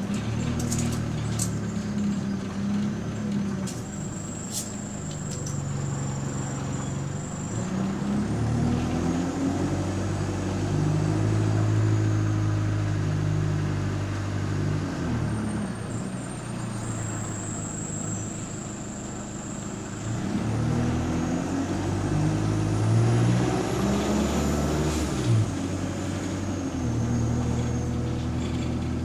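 Bus engine and drivetrain heard from inside the passenger saloon, the engine note rising in steps as the bus pulls away and then falling back as it eases off, twice over.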